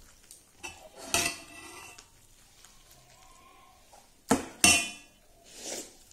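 Metal clanks and scrapes on a metal dinner plate while rice is mixed and eaten by hand. There is a ringing clank about a second in and two sharp clanks in quick succession just after four seconds.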